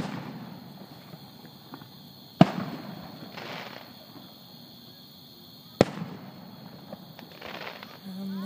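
Aerial fireworks shells bursting in a display: three sharp booms, the second about two and a half seconds in and the third nearly six seconds in, each trailing off in a fading echo.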